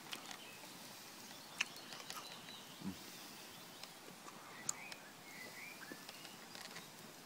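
Quiet outdoor background with a few scattered sharp clicks and pops, a soft low thump about three seconds in, and faint short bird chirps about four to five seconds in.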